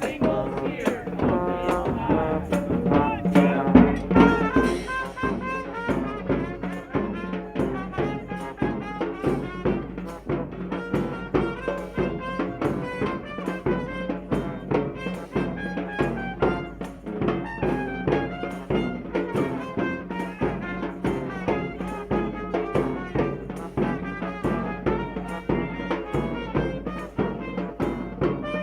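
Street brass band playing, with trumpets and trombones over a steady drum beat.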